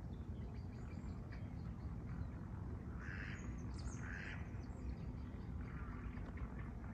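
A duck quacking twice, two short harsh quacks about three and four seconds in, over a steady low rumble.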